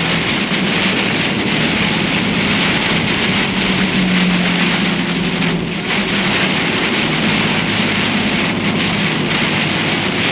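Heavy rain hitting a moving vehicle, a loud steady hiss, with the engine's low hum underneath.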